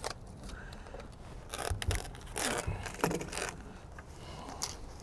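SIGA Wigluv membrane tape being peeled from its backing and pressed down by hand around a window buck corner: a few short rustling scrapes from about a second and a half to three and a half seconds in, and one more near the end.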